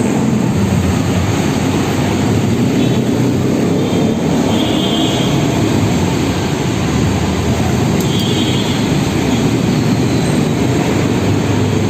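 Suzuki Raider 150's single-cylinder engine running loud and steady.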